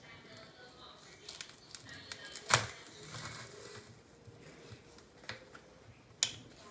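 A few sharp clicks and knocks of kitchen handling, the loudest about two and a half seconds in and another just after six seconds, with smaller ticks between.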